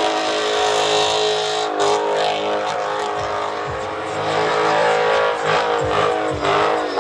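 Dodge Challenger engine held at high revs during a burnout, its rear tyres spinning. The pitch stays high and nearly steady, dips briefly near the end, then climbs again.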